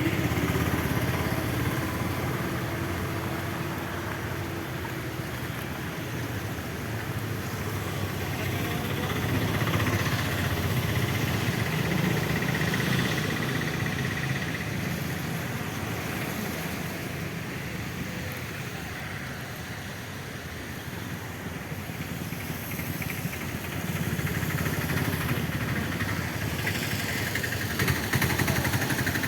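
Town street traffic: vehicle engines running and idling, with the sound swelling and fading as vehicles pass.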